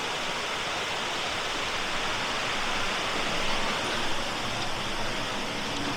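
Steady rushing of creek water from a waterfall.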